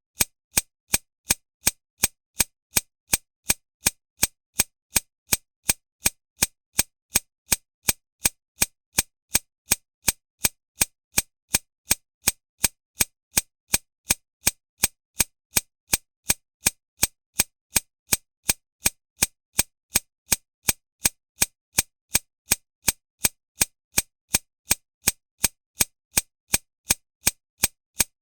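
Handgun shot sound effect repeated at an even pace, a little over two shots a second, each a short sharp crack with no tail.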